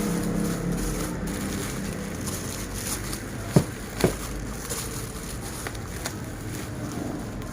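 An engine sound, like a passing motor vehicle, fades away, leaving a low steady background. Two sharp clicks about half a second apart come a little past the middle, with a few fainter clicks of handling around them.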